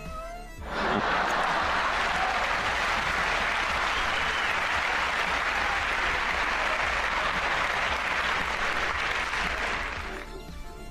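Applause, starting suddenly about a second in, holding steady, and fading out near the end.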